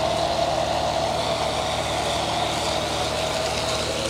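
Self-service car wash foam lance spraying a van, with the wash bay's high-pressure pump running: a steady hiss over a constant hum.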